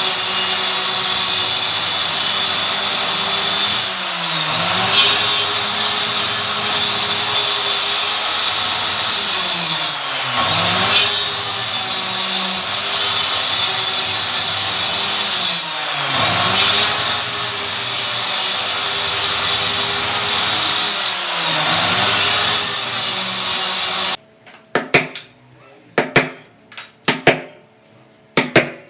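A power tool working wood runs steadily, its motor pitch sagging and recovering about every six seconds as it takes load. It stops suddenly near the end, followed by a quick series of sharp taps and knocks.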